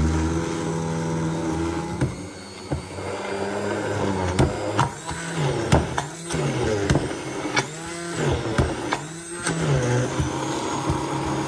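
Braun MultiQuick 9 hand blender's motor running while it blends a very thick, icy smoothie mix. The mix loads it down, and from about four seconds in its pitch sags and recovers several times, with sharp knocks in between.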